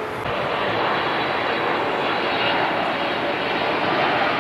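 Jet airliner flying low on its landing approach: a steady engine rumble with a faint whine, growing gradually louder as it comes nearer.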